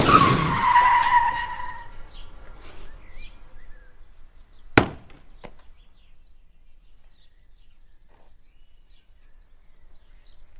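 A car hitting a pedestrian: a sudden loud crash with a screeching tone that fades over about two seconds, then a single sharp knock about five seconds later.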